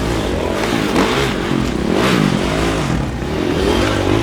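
Several enduro motorcycle engines revving at once, their pitches rising and falling as the riders work the throttles over the course.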